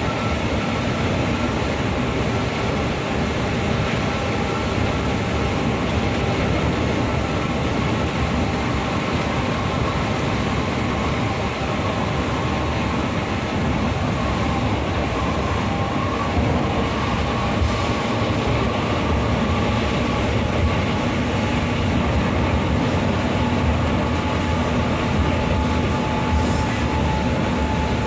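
Steady cabin noise of an intercity bus driving at speed on a wet road: a constant engine drone with an even hum, under the hiss of tyres on wet tarmac.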